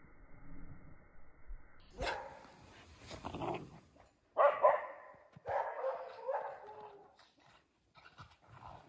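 Poodles barking in a run of separate barks while playing together, starting about two seconds in.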